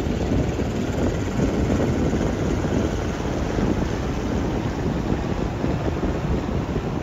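Ocean surf breaking and washing up the beach, with wind rumbling on the microphone; a steady deep rush with no distinct events.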